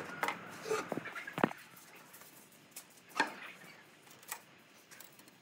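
A few scattered knocks and taps of wood being handled on a wooden workbench, several close together in the first second and a half and the loudest about three seconds in.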